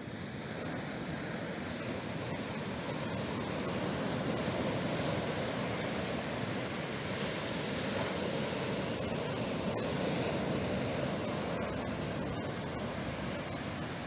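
Pacific Ocean surf breaking and washing up a sandy beach: a steady rushing of foaming waves that swells and eases twice.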